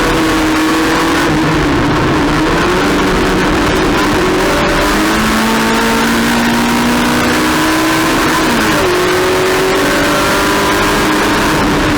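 Race car engine running hard at high revs, its pitch gliding up and down with throttle and gear changes, dropping sharply about nine seconds in.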